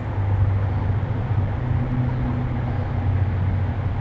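Steady low rumble, with a faint hum coming and going about halfway through.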